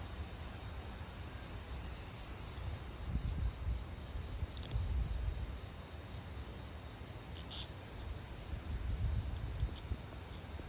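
Outdoor ambience: a steady high insect drone with a low rumble beneath it, broken by two sharp clicks about four and a half and seven and a half seconds in, and a few fainter ticks near the end.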